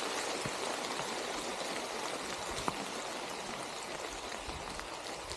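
Steady rush of running spring water with rain falling, and a few sharp ticks of drops landing close by.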